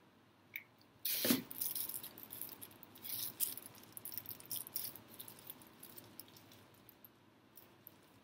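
Plastic-bag braid crinkling and rustling as it is handled and pressed into place, starting about a second in and thinning to scattered crackles.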